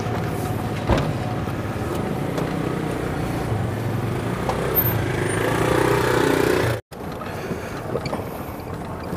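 City street traffic: car engines running close by, with steady road noise. The sound drops out for a moment about seven seconds in and comes back quieter.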